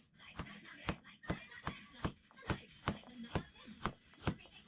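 Knife chopping on a cutting board in a steady rhythm of about two and a half strokes a second.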